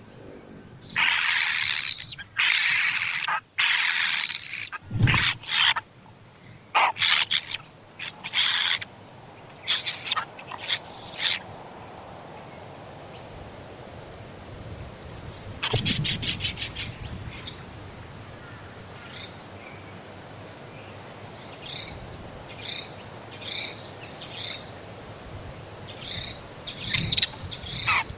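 Nestling birds begging for food: several long, harsh, rasping calls in the first few seconds, then shorter calls, a quick rattling run about halfway, and many short chirps toward the end. A steady high-pitched whine runs underneath, and there is a dull thump about five seconds in.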